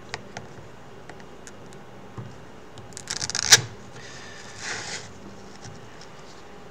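Velcro (hook-and-loop) top strap of a VR headset being worked by hand: a few light taps, then a short crackling rip about three seconds in, followed a second later by a softer rasp as the strap is pressed and pulled through its slot.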